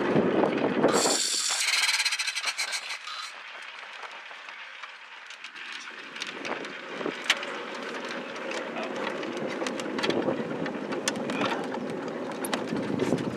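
Ford Model T rolling with its engine not yet running: a steady rattle and road noise that grows louder over the last several seconds, with scattered clicks.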